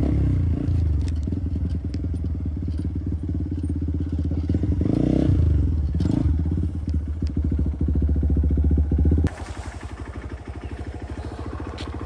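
Motorcycle engine running while riding, then about nine seconds in the sound drops abruptly to a quieter, evenly pulsing idle.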